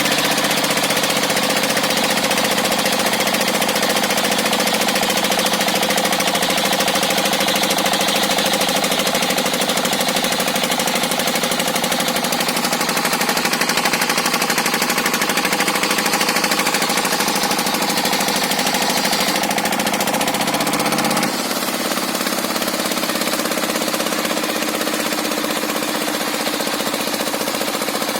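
Engine-driven circular sawmill running steadily with a dense, many-toned mechanical whine, its saw blade unsharpened. About 21 seconds in the pitch suddenly drops and the sound gets slightly quieter.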